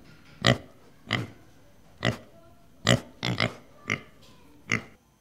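Domestic pigs grunting: about eight short, separate grunts at uneven intervals, two of them in quick succession a little past the middle.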